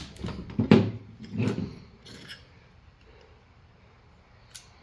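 Metal clicks and scraping from a stiletto switchblade being handled after its lock has snapped, with a sharp click about three-quarters of a second in and a few more in the next two seconds, then one faint tick near the end.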